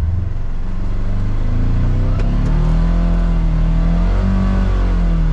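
Polaris Xpedition's ProStar 1000 twin-cylinder engine revving, climbing over the first couple of seconds and then held high, heard from inside the enclosed cab. The machine is stuck in deep water and the driver is giving it throttle to try to back out.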